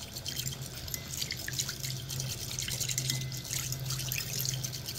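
Fork stirring a thin liquid marinade in an enamel bowl: quick, irregular light clinks of metal on the bowl with small splashes of liquid.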